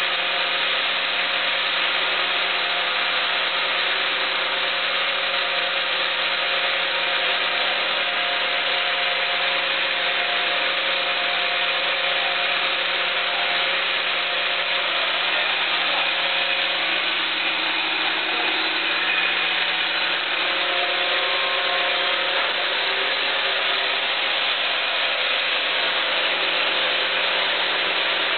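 Sawmill band saw cutting lengthwise through a zelkova (keyaki) log: a loud, steady sound of the blade in the wood, with several held machine tones under the rasp of the cut.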